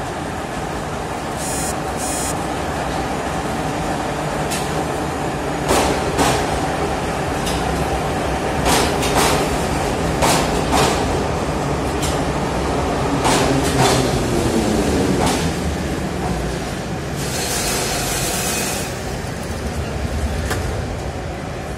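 Metro train rumbling into the station and braking to a stop, with sharp clicks from the wheels and a falling whine as it slows. A few seconds after the whine fades, a burst of air hisses as the pneumatic doors open.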